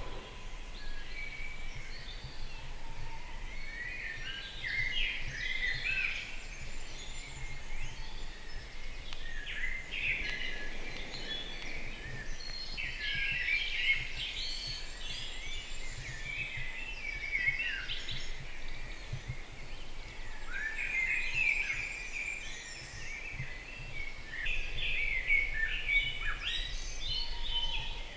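Dawn chorus: several songbirds singing at once, short overlapping chirping and warbling phrases without a break, over a faint steady low background rumble.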